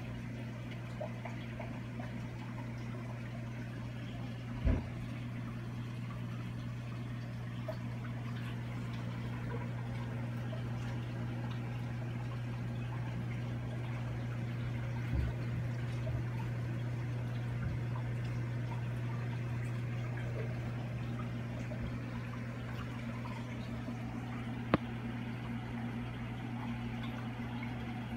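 Reef aquarium running: a steady low hum from its pumps with water flowing and trickling. A few soft bumps and one sharp click about three-quarters of the way through stand out above it.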